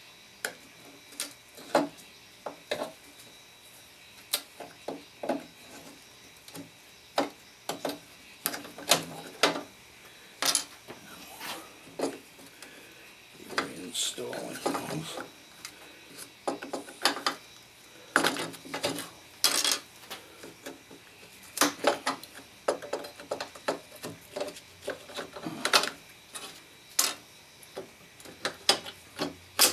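Putty knife prying out the thin wooden strips that hold the glass in a clock case door: an irregular run of clicks, knocks and short scrapes of the metal blade against wood.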